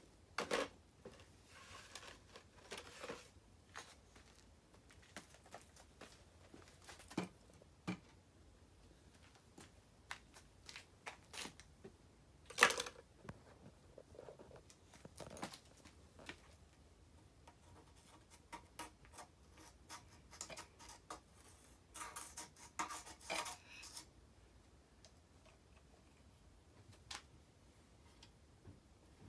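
A small child rummaging among art supplies in a plastic bucket: scattered clicks, knocks and rustles of small objects being handled. There is one sharper knock about halfway through and a quick run of rattling a little past two-thirds in.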